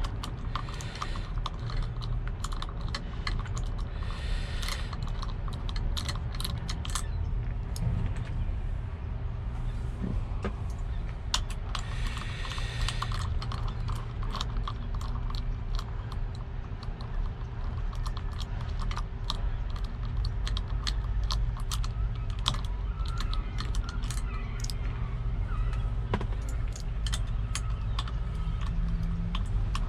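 Sped-up hand ratchet and socket clicking and clinking as steering wheel hub bolts are worked loose, many irregular sharp clicks over a steady low hum.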